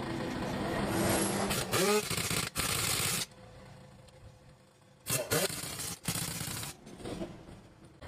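Pneumatic impact wrench running on a truck's wheel nuts in two bursts of about a second and a half each, each opening with a short rising whine as the wrench spins up.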